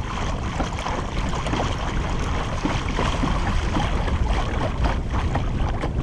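Water splashing and lapping at a kayak's bow as it moves through calm water, over a steady low rumble of wind on the microphone.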